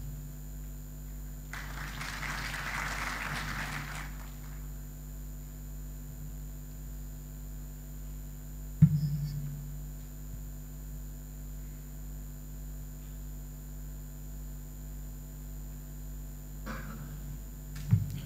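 Brief audience applause, then a steady electrical hum through the PA system. A sharp thump on the lectern microphone comes about nine seconds in, and smaller knocks near the end.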